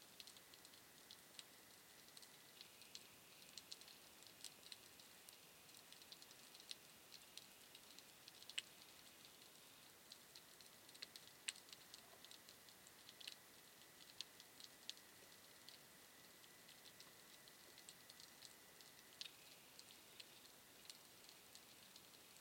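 Faint, irregular clicking and crackling heard underwater over a low hiss. A faint steady high whine comes and goes.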